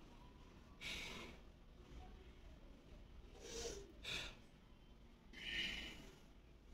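A man's heavy breathing while he catches his breath after a set of push-ups: four audible breaths, the last one the longest.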